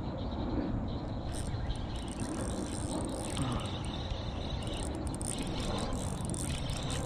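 Wind buffeting the microphone in a steady low rumble, with a faint high, steady chirring underneath.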